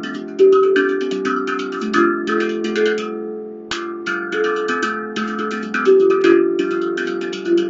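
Handpan played with the hands: a quick stream of struck notes that ring on and overlap. The strikes stop briefly about three and a half seconds in while the notes keep ringing, then pick up again with a sharp hit.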